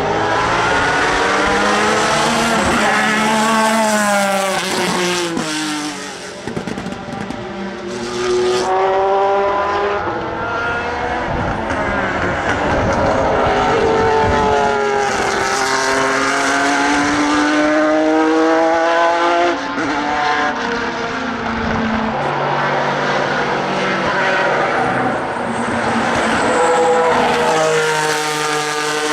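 Pilbeam MP91 LMP2 prototype's JPX/Mader V6 racing engine at full racing speed, the revs climbing through the gears and falling away on downshifts several times over.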